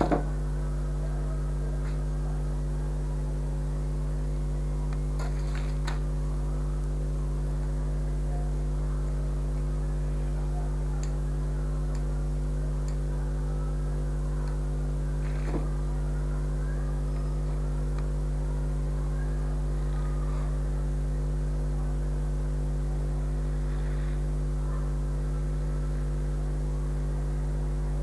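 Steady electrical hum at an even level, with a few faint clicks, the sharpest right at the start.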